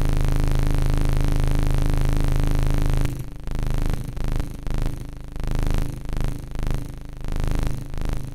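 Fuzzed analog synth oscillator from a SynthCone PATCH: a steady buzzing drone for about three seconds, then pulsing about twice a second as the fuzz is modulated by CV from the step sequencer.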